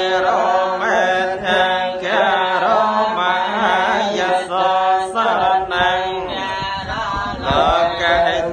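Buddhist prayer chant recited in unison by a group of voices, a steady sung recitation with held and gliding notes.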